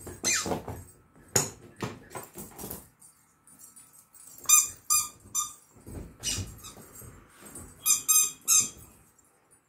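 Rubber squeaky dog toys squeaked in short bursts as a dog bites them, two quick runs of about three squeaks, between stretches of rustling and snuffling in the bedding.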